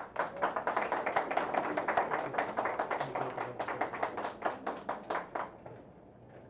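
A small group applauding: a few seconds of hand clapping that thins out and stops about five and a half seconds in.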